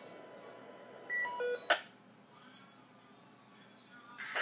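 A quick run of three or four electronic beeps at changing pitches, about a second in, followed at once by a sharp click.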